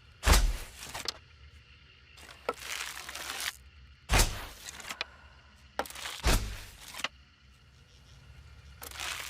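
Hunting bow being shot, as a sound effect: three sharp thuds with a deep low end, each near a second-long rushing, scraping noise.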